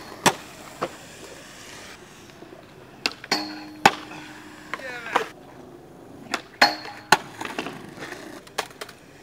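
Skateboards popping and landing on concrete: a string of sharp cracks and board slaps, with wheels rolling between them. One hit about three seconds in keeps ringing for about two seconds.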